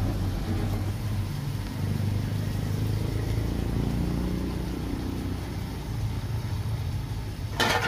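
Steady low motor hum, with a short loud clatter near the end.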